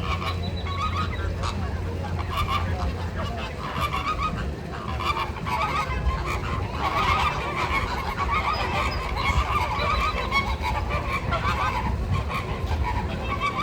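A flock of flamingos honking, many goose-like calls overlapping, busiest through the middle.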